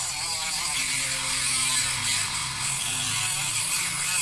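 Gogonova cordless mini grinder with a small cut-off disc cutting through a steel nail: a steady grinding hiss over the motor's whine, which wavers in pitch as the disc bites into the metal.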